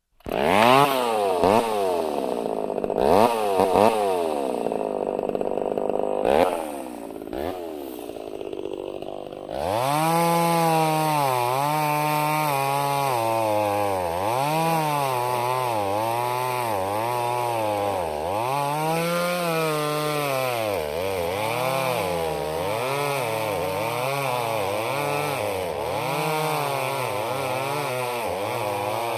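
Two-stroke chainsaw revving. In the first third the throttle is blipped in short separate bursts. After that it runs louder, its pitch rising and falling in a steady rhythm roughly every second and a half.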